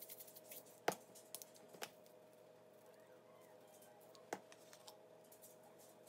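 Faint shaking of spice shakers over fish fillets, a light rapid ticking over the first two seconds, with a few sharp clicks of the plastic shaker jars and their flip-top caps, the loudest about a second in and another a little past four seconds. A faint steady hum runs underneath.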